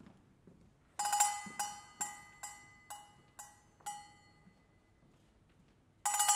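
Kitchenware played as percussion instruments, struck to give clear, ringing pitched tones. About a second in comes a quick run of roughly eight strikes over three seconds, each ringing away. After a pause, a new cluster of strikes begins near the end.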